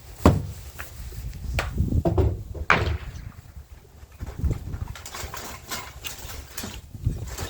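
Objects being handled and set down on a work surface: a series of separate knocks and clunks with rustling and shuffling between them.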